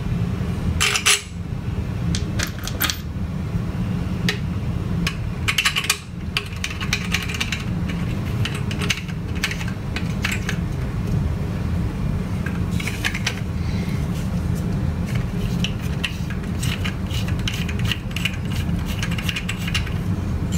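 Small metal screws and nuts clicking and clinking together as they are picked through and handled, in short scattered clusters, over a steady low hum.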